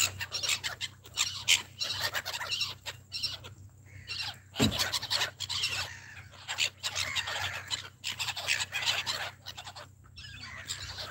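A flock of gulls calling in quick, overlapping squawks as they crowd in to be fed. There is one low thump a little before halfway.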